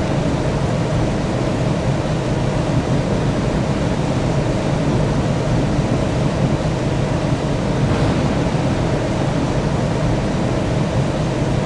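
Steady, loud roar of an airliner's jet engines and rushing air, even throughout, with the higher hiss brightening slightly about eight seconds in.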